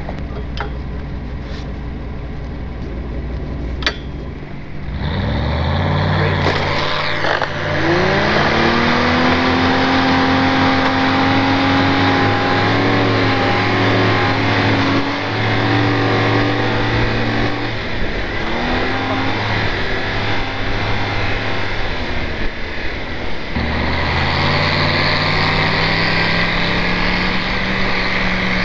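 Vehicle engine working under load while towing through snow: its pitch climbs about six seconds in, holds, drops, and climbs again near the end, over a steady rush of wind and road noise.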